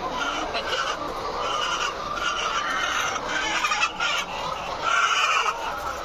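Many caged laying hens calling at once, a dense, steady din of overlapping clucks, a little louder about five seconds in.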